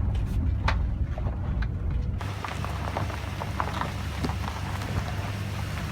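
Raindrops ticking on a cargo van, some hitting hard and sharp, over a steady low rumble of the running van. About two seconds in a brighter hiss of rain joins in.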